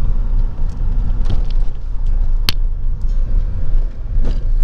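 Steady low rumble of a car driving, with a sharp click about halfway through and a couple of fainter knocks.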